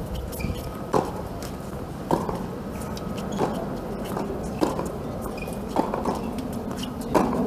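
Tennis rally on a hard court: a sharp pop from a racket hit or a ball bounce about once a second, six in all, as the ball is struck back and forth.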